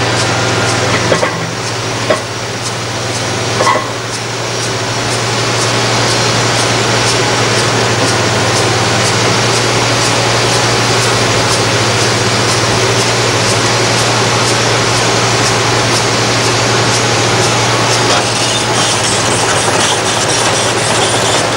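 Liebherr R962 Litronic hydraulic crawler excavator's diesel engine running steadily under work, with three short knocks in the first four seconds.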